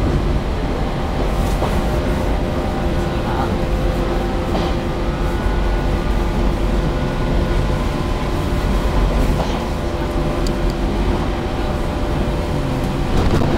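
Running noise inside the coach of a resistance-controlled electric train, which the uploader takes for a 413 series: a steady rumble of wheels on rail with a steady hum of the motors.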